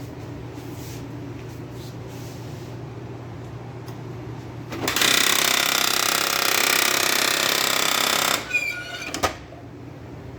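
HP LaserJet M603 laser printer running with a loud grinding rattle for about three and a half seconds, starting about halfway through. Two short sharp clicks follow, over a low steady hum. This is the abnormal mechanical noise the printer is being diagnosed for.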